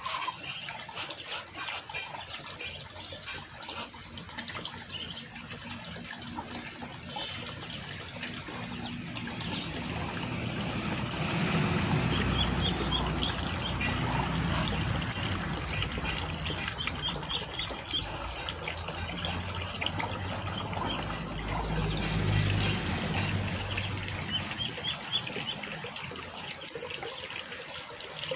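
Shallow water trickling over a wet concrete yard, with Muscovy ducklings peeping in short high runs in the middle and again near the end. A low rumble swells under it through the middle.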